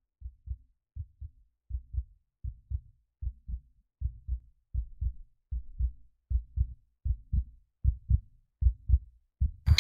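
Heartbeat sound effect: low double thumps, lub-dub, repeating about 80 times a minute and growing steadily louder.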